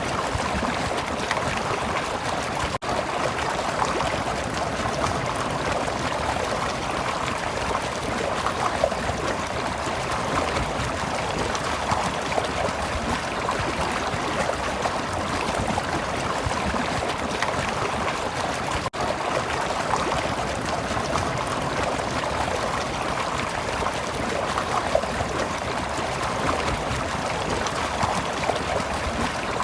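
Flowing stream: a steady, even rush and babble of running water. It cuts out for an instant twice, about 3 seconds and 19 seconds in.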